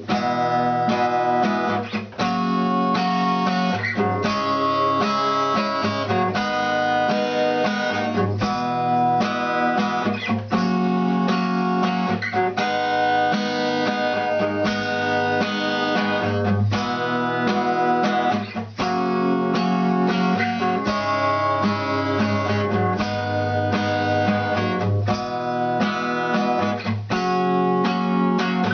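Instrumental music with acoustic guitar strumming steady chords over a bass line, with no singing.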